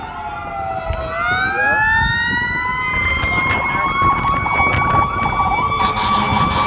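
Emergency vehicle siren: its tone sinks during the first second, then climbs slowly for about three seconds and holds a steady wail. A low steady drone joins near the end.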